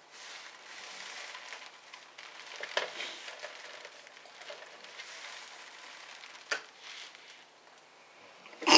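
Hands handling the plastic bottom case of an ASUS R558/X556 laptop on a table: low rustling and scraping, with a couple of sharp clicks as the cover is pressed down. A short loud noise comes right at the end.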